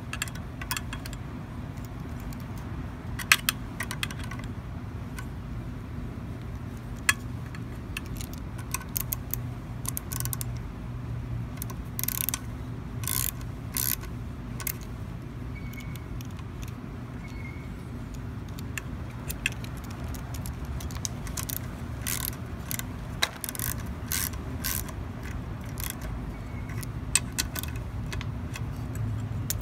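Scattered, irregular metallic clicks and ratchet ticks of a screwdriver and socket ratchet working the rocker-arm adjusting nuts on a Briggs & Stratton 140cc overhead-valve engine, loosening and retightening them to set the valves.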